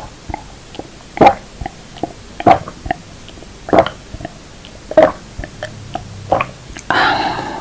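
Close-miked crunching of uncooked black and red rice grains being chewed: a sharp crunch about every second and a quarter, with small cracks between them. Near the end comes a longer, noisier sound of about half a second.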